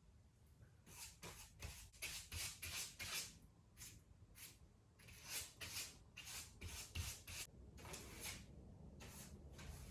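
Repeated brisk rubbing or scraping strokes against a surface, several a second in irregular runs, with short pauses between the runs.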